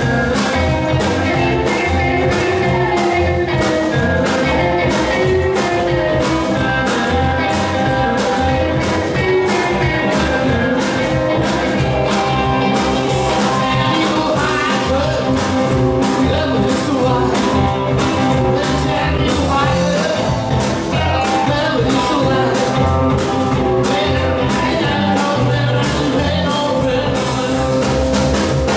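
Live rockabilly band playing, with hollow-body electric guitars, slapped upright double bass and a drum kit keeping a steady, driving beat.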